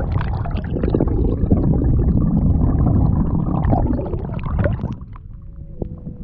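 Lake water splashing and rushing close against the microphone as it dips at the surface beside a boat and a hand trails through the water. It grows quieter about five seconds in.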